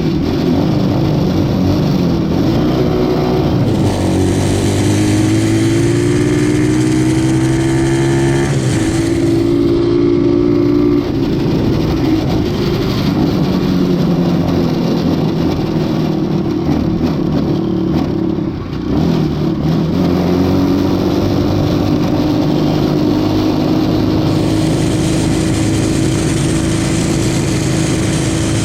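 X15 super pocket bike's small single-cylinder four-stroke engine under way, revving up through the gears: its pitch climbs, drops at each shift and climbs again several times.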